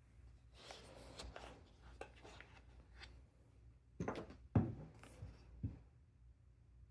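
Mellow 60 mechanical keyboard with Gateron Smoothie switches: a short rustle of handling, then four separate deep key strikes over about two seconds, the second one the loudest.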